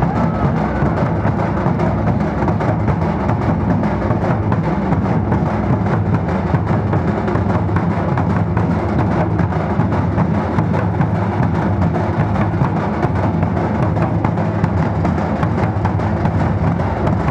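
Dhol-tasha ensemble playing: large barrel drums (dhol) and small stick-beaten kettle drums (tasha) in a dense, driving rhythm that does not let up.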